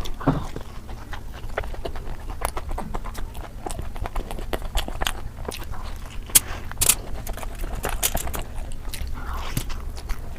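Close-miked mukbang eating sounds: a person chewing puri with curry, with a steady run of wet mouth clicks and lip smacks. Two sharper smacks stand out a little past the middle.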